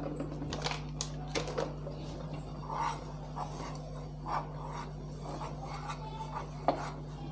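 Wire whisk beating a thick milk-powder mixture in a steel saucepan: scraping and rubbing with irregular sharp clicks as the whisk strikes the pan, the loudest near the end, over a steady low hum.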